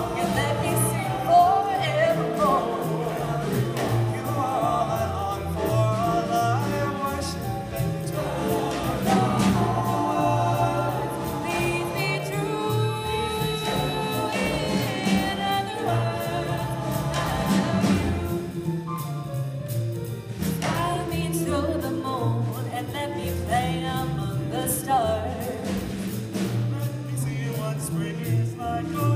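Mixed-voice vocal ensemble singing in harmony through handheld microphones, with piano accompaniment.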